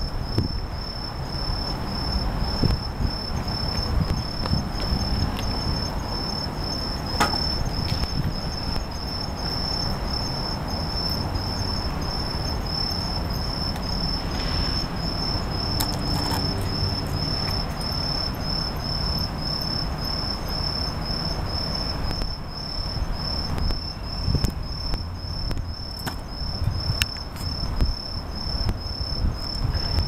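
Bell crickets (suzumushi) singing: a high, evenly pulsed trill that keeps up without a break, over a steady low rumble.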